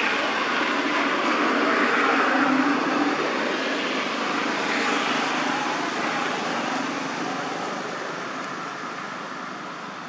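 Engine noise of something passing, swelling over the first few seconds and then slowly fading.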